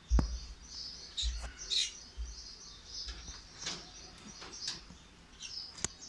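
Caged birds, lovebirds among them, chirping: many short, high calls throughout, with a few sharp clicks and several low thumps in the first three seconds.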